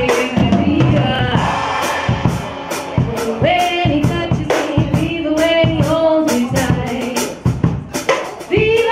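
A woman singing into a microphone over band music, with a drum kit keeping a steady beat.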